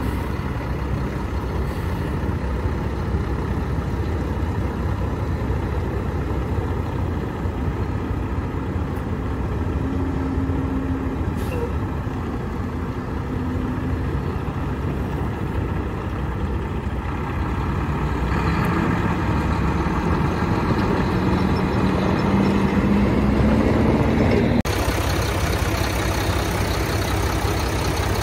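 Mack CXU613 truck tractor's diesel engine running at idle, a steady low rumble. In the second half a tone slowly rises in pitch for several seconds, then the sound changes abruptly.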